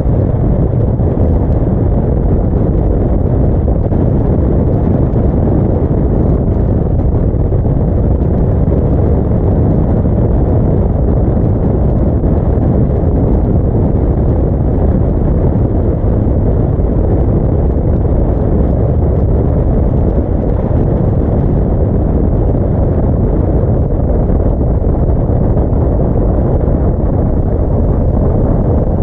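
Yamaha V-Max 1200's V4 engine running under way, mixed with the steady low rumble of wind buffeting the microphone at road speed.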